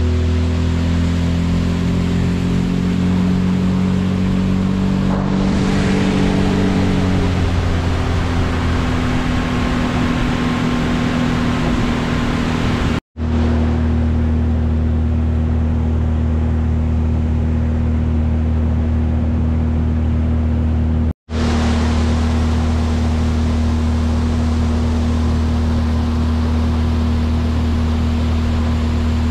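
Honda 30 outboard motor driving a small boat at a steady cruising speed, its pitch easing slightly a few seconds in, then holding even. The sound cuts out for an instant twice.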